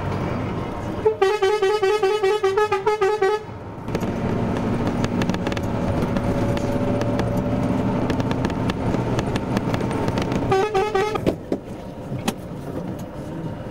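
Road vehicle horn sounded in a rapid train of pulsing toots for about two seconds, then again briefly near the end, over the steady rumble of a vehicle running along the road.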